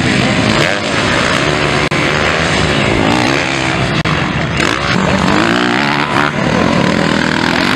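Motocross dirt bike engines revving hard, their buzzing pitch climbing and dropping again and again with throttle and gear changes.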